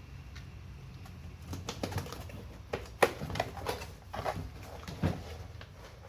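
A box being opened and its packaging handled: irregular clicks, taps and rustling, several sharper knocks a few seconds in.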